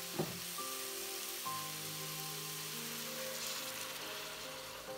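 Beef broth poured into a hot pot of browned beef and vegetables, with a steady splashing, sizzling hiss. There is a brief thump near the start, and soft background music plays throughout.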